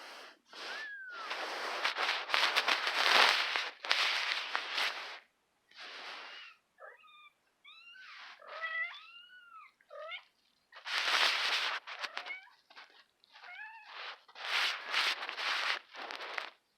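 A kitten mewing in short, high calls that rise and fall, between louder stretches of rustling, hiss-like noise.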